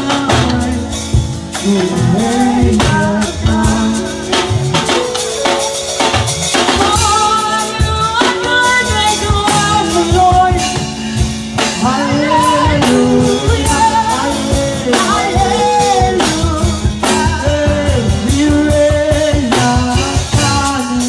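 Live band music: a woman singing lead into a microphone with backing singers, over keyboard and a drum kit keeping a steady beat.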